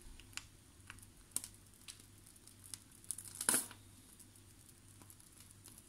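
Faint crinkling and small clicks of a plastic piping bag being squeezed as cream cheese is piped through a fluted nozzle, with one louder short rustle about three and a half seconds in.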